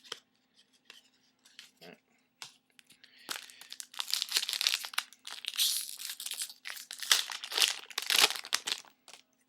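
Trading-card pack wrapper being torn open and crinkled by hand, in several crackly bursts that start about three seconds in.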